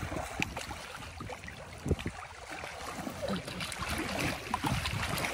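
Water splashing and sloshing in the shallows as hands move among freshly caught fish held at the shore, with small irregular splashes and a steady outdoor noise.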